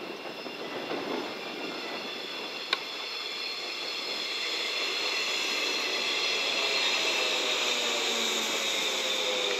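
JR West 115-series 3000-subseries four-car electric train running in along the platform, getting louder as it comes close, with several steady high whining tones over the running noise. From about seven seconds in, a lower tone falls in pitch as the train slows. A single sharp click comes about three seconds in.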